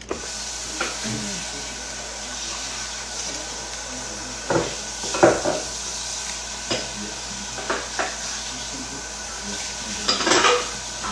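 Dishes and utensils clattering and clinking in a kitchen several times, the loudest knocks about five seconds in and near the end, over a steady rushing hiss.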